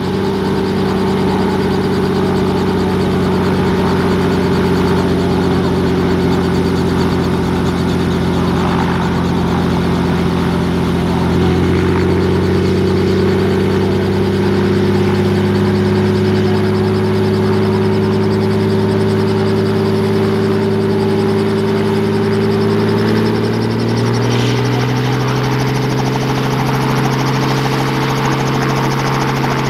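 Robinson R44 Raven II helicopter running on the ground before take-off, its Lycoming IO-540 six-cylinder engine running steadily while the main rotor turns slowly. The engine note rises in two steps, about a third of the way in and again near the end.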